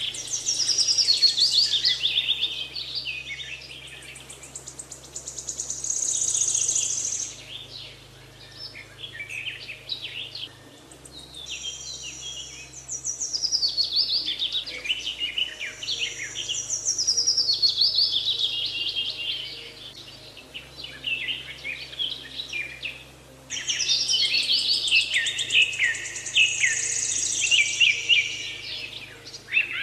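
Songbirds singing: phrases of high, rapid, trilling song a few seconds long, repeating with short pauses between them.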